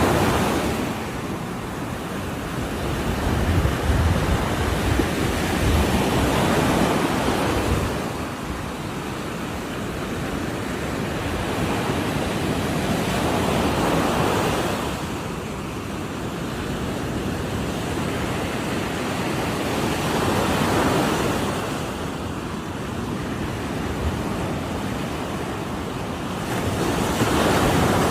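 Ocean waves breaking on the shore: a continuous wash of surf that swells and falls back every six or seven seconds as each wave comes in.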